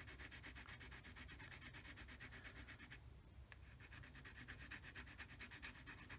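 Coloured pencil scribbling on textured mixed media paper in rapid, even back-and-forth strokes, faint, with a short break about halfway. It is layering pink over white pencil.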